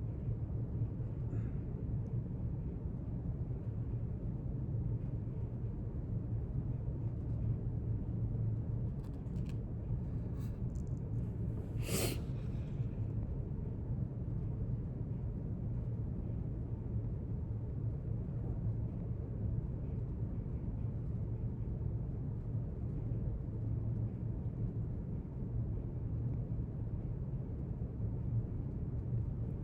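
Library room tone: a steady low rumble. A few faint ticks come about nine to eleven seconds in, then one sharp click about twelve seconds in.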